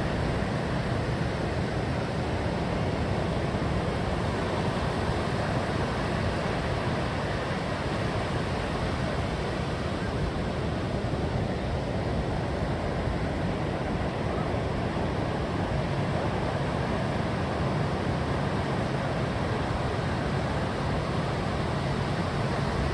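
Steady rushing noise of wind and sea surf, even throughout with no distinct wave breaks.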